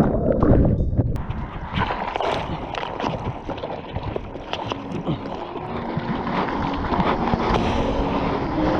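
Water splashing and sloshing in small surf with wind buffeting the microphone, from paddling and riding waves. Soft background music fades in during the second half.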